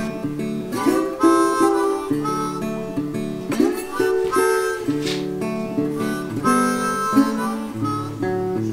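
Background music: an acoustic tune with harmonica and guitar.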